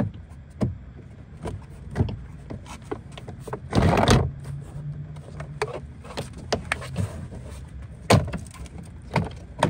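Plastic interior door trim panel of a Toyota Camry being handled and fitted back onto the door: scattered clicks and knocks as its tabs and clips go in, with a louder rustling scrape about four seconds in.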